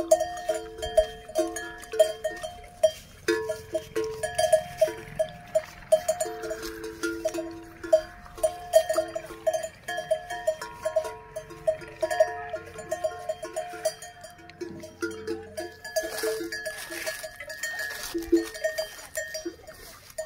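A bell on a grazing cow's neck clanking in an irregular rhythm, several struck notes a second, as the cow moves its head while feeding.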